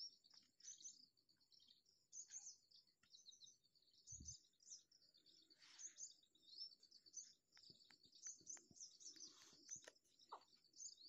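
Faint, continuous chirping of many small birds, with a few soft taps and a short low thump about four seconds in.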